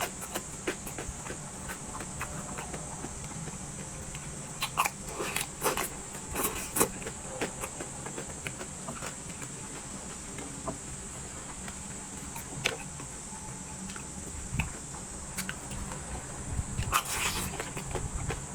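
Close-up eating sounds: chewing with scattered, irregular mouth clicks and smacks, a denser run of them near the end, over a steady faint hiss.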